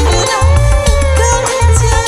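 Loud live Makassar pop music through a sound system: a heavy bass beat pulsing under a held, wavering melody line, with light shaker-like percussion.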